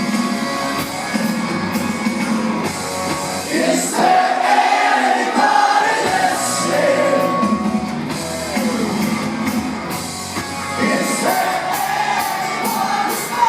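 Live rock band performing, with a male lead vocal sung over electric guitars.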